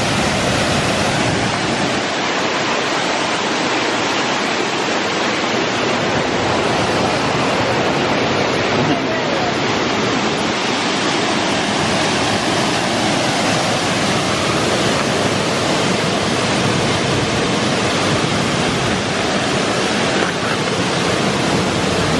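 Bond Falls' wide waterfall and river rapids rushing, a loud, steady wash of falling water.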